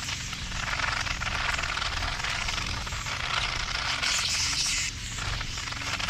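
A flock of pin-tailed whydahs and other small seed-eating birds at a feeder, chattering in a dense, continuous twitter mixed with wing flutters. A louder burst of chatter comes about four seconds in and cuts off just before five seconds.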